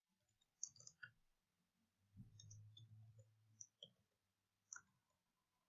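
Near silence with a few faint, scattered computer keyboard key clicks, as a short line of code is typed.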